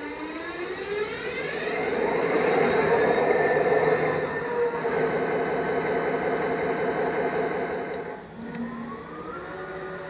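Diesel-electric locomotive engine revving up, its pitch rising over the first two seconds, then running loudly under power. About eight seconds in it eases off, and near the end it begins to rise again.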